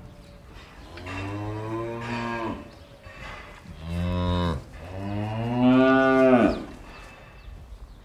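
Cows mooing: three moos, the first about a second in, a short one around four seconds, and a longer, loudest one near the end.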